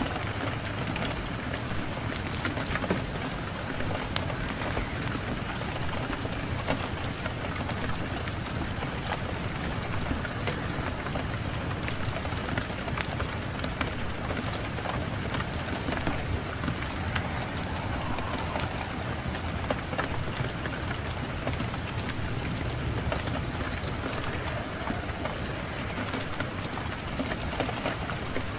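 Fireplace fire crackling, with many small sharp pops over a steady low rush of wind.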